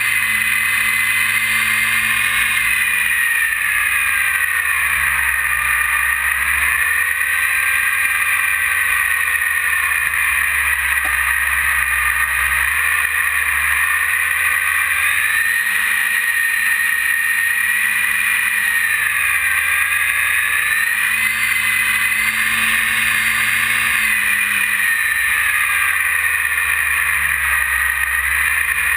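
E-flite 480 1020 kV brushless outrunner motor and propeller on a Mini Ultra Stick RC plane, heard from on board: a steady high whine whose pitch sinks and rises several times as the throttle and airspeed change. A low rumble of wind on the microphone runs underneath.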